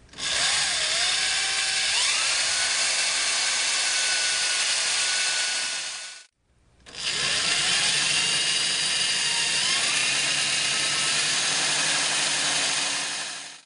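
Power drill running in two long runs of about six seconds each with a short stop between, its motor whine rising in pitch as it speeds up and then holding steady.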